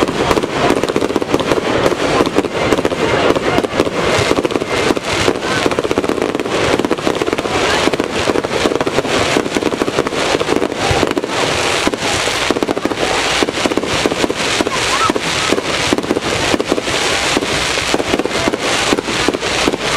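Aerial fireworks display, with a dense run of sharp pops and crackles in quick succession as shells burst and their stars crackle.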